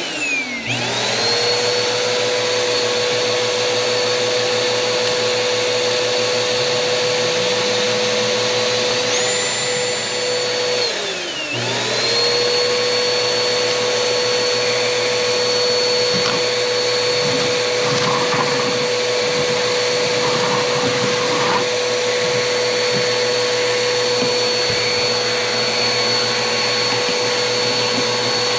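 Vacuum motor running with a steady whine. It spins up at the start, then winds down and spins back up about ten seconds in. Under it a cordless drill turns a hole saw in reverse through the boat's fiberglass.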